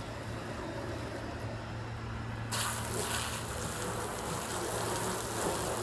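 Garden hose spraying water onto a car's body to rinse it off, a steady spray that starts suddenly about two and a half seconds in.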